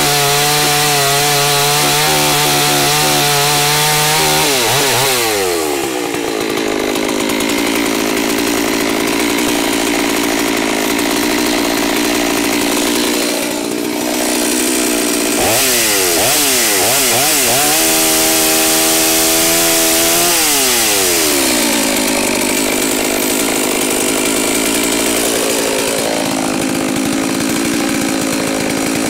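A new G388 two-stroke chainsaw, still being broken in on a rich oil-gas mix, finishes a cut through a log at full throttle. The throttle is released about four seconds in and the saw drops to idle. Later the saw is revved in a few quick blips, held high for a couple of seconds, and let fall back to idle.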